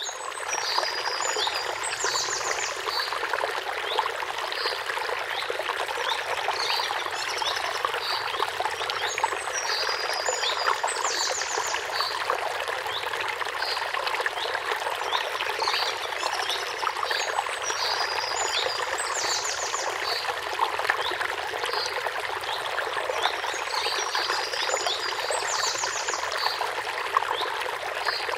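Steady rushing, water-like noise, like a stream, with clusters of short, high trilling animal calls that come back about four times.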